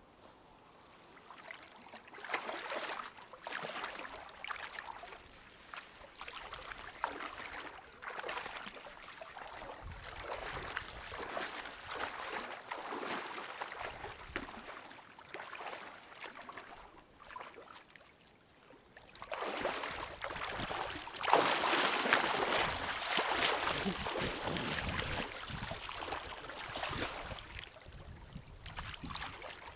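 Water sloshing and splashing in irregular surges, louder from about two-thirds in.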